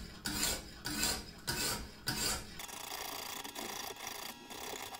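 Coarse 120-grit Lansky sharpening hone rasping back and forth along a chef's knife edge under heavy pressure, grinding metal off to reprofile the edge. The strokes come about every two-thirds of a second at first and run together after about two and a half seconds.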